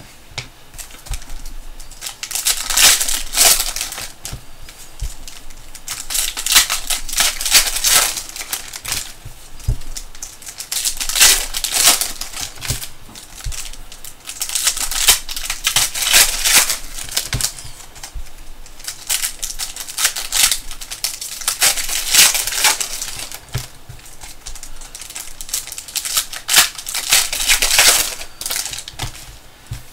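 Trading card packs being handled and opened: bursts of crinkling wrapper and rustling, clicking cards, about every four seconds.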